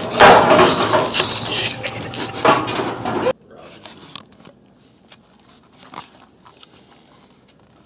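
Loud rustling and knocking of a handheld camera being grabbed and jostled, cut off abruptly a little over three seconds in; then faint scattered taps and clicks as the camera is moved near the floor.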